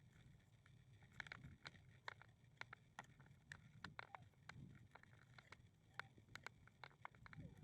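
Faint footsteps on a walk: many light, irregular clicks and taps over a faint low rumble.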